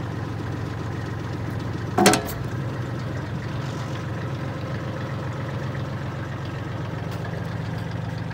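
Diesel engine of a Kubota compact tractor with a BT900 backhoe running steadily at idle. About two seconds in, one sharp knock as the backhoe bucket strikes the wood in the concrete vault.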